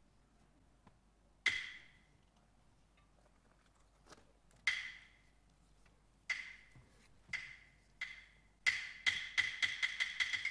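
Peking opera percussion: single sharp, ringing, wood-like strikes a second or more apart, speeding up in the last two seconds into a quick run of about five strikes a second.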